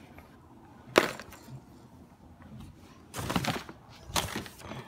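Handling of a small plastic toy quadcopter and the phone: a sharp plastic click about a second in, then two short bursts of rustling and rubbing about three and four seconds in as it is picked up and carried.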